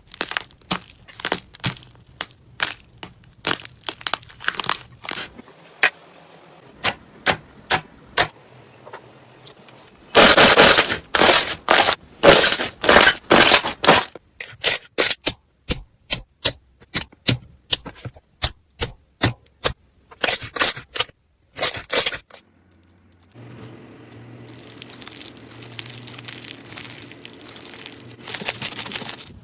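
Slime being squeezed and poked: a long series of sharp pops and crackles, with a dense run of louder crackling about ten seconds in and a softer, fizzing squish near the end.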